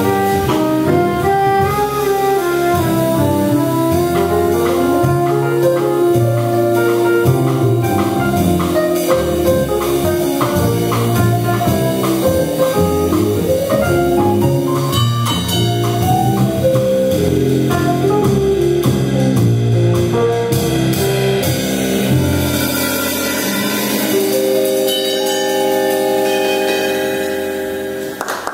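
Live jazz quintet playing, with drum kit, upright bass and electric piano. From about three-quarters of the way through, the band settles onto a long held final chord.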